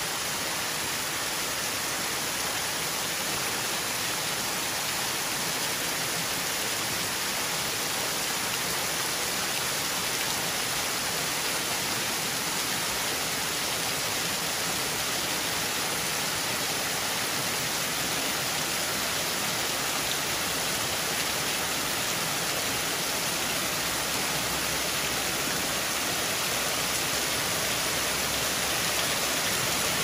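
Small mesothermal spring waterfall: many thin streams of water spilling down a mossy rock face and splashing into a shallow pool, a steady hiss of falling and splashing water.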